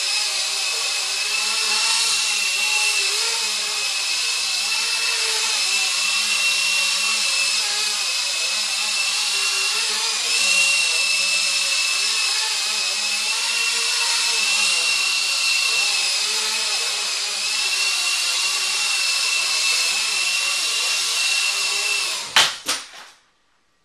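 Blade 120 SR micro RC helicopter in flight: a steady high-pitched motor and rotor whine under a lower rotor buzz, its pitch wavering slightly as the throttle changes. Near the end come a few sharp knocks as the helicopter hits a wall, and the motor cuts out.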